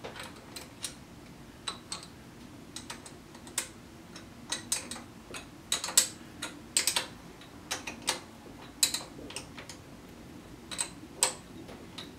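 Irregular light metallic clicks and clinks, some with a brief ring, from a small hand tool and metal parts being handled and tightened at a metal lathe's tool post and top-slide stop.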